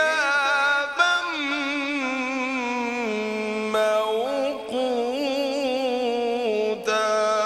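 A male qari reciting the Quran in slow, melodic tajweed style: long drawn-out vowels with ornamented, wavering pitch, the voice pausing briefly about a second in.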